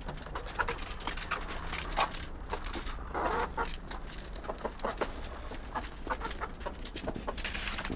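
A flock of chickens, hens and roosters, clucking, with many short clicks and taps in between.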